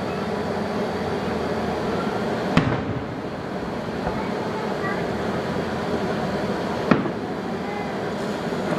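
Fireworks going off: two sharp bangs about four seconds apart, over a steady background murmur.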